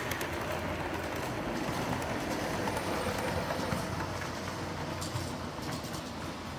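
G scale model train running past close by on brass track: a steady motor whir with light, irregular clicking of the wheels on the rails, easing off a little near the end as the cars move away.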